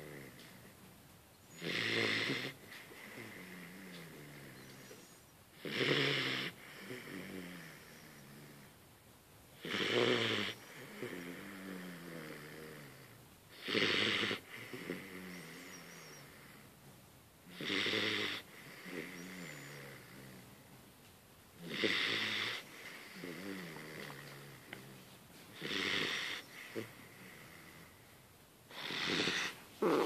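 A Hungarian vizsla puppy snoring in its sleep: a loud snore about every four seconds, eight in all, with softer pitched breath sounds between them.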